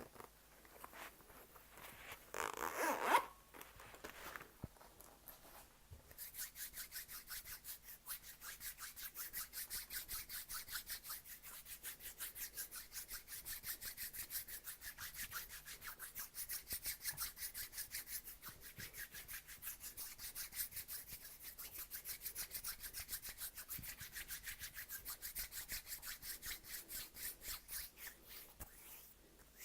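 An ASMR trigger of quick, evenly repeated scratching or rubbing strokes on a surface, which run on for over twenty seconds. A shorter, louder rustle comes a couple of seconds in.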